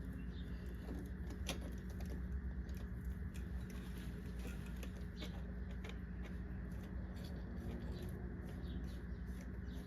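Faint, irregular light metallic clicks and handling over a steady low hum: a cylinder head bolt being threaded in hand-tight.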